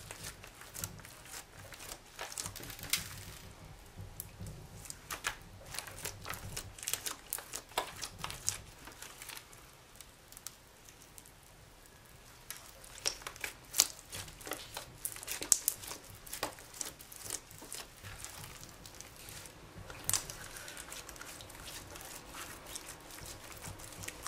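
Hands kneading and pressing glossy slime mixed with glitter and small beads: sticky squelches with many irregular sharp pops and clicks as the slime pulls and air pockets burst, thickest in bursts about a quarter of the way in and again past the middle.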